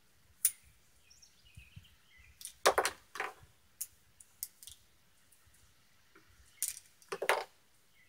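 Metallic clicks and clacks of an 1889 Bodeo revolver being unloaded by hand, the cylinder turned and cartridges worked out one by one. The clicks come at irregular intervals, with louder clusters about three seconds in and near the end.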